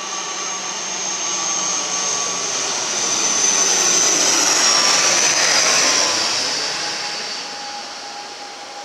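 Wings Air ATR twin-turboprop airliner on landing approach with its gear down, flying low overhead. Its engines and propellers grow louder to a peak about four to six seconds in, then fade, with a high whine that drops in pitch as it passes.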